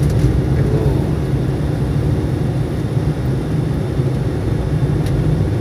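Steady low rumble of a car driving along a road: engine and tyre noise with no distinct events.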